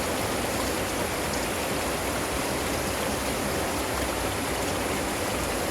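A small waterfall of spring water running steadily: a constant, even rush of falling and splashing water.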